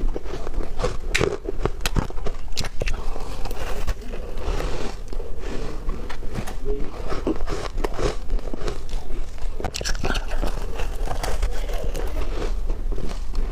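Close-up bites into soft frozen ice (flavoured freezer frost or shaved ice): a continuous run of crunching, crackling bites.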